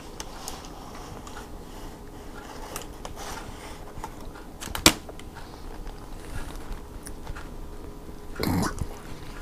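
Faint rustling of a paper hot dog sleeve and cardboard tray as the hot dog is slid out and handled, with a sharp tap about five seconds in and a short, louder rustle near the end.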